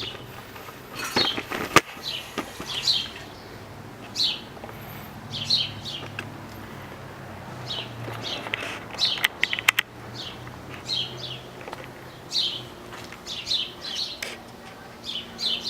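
A bird chirping over and over in short, high, falling notes. A few sharp clicks come about a second and a half in and again near ten seconds.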